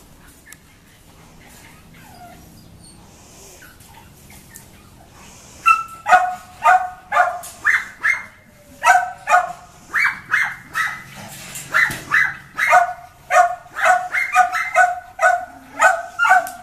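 Dog barking: after a quiet start, quick high barks begin about six seconds in and keep going, two or three a second.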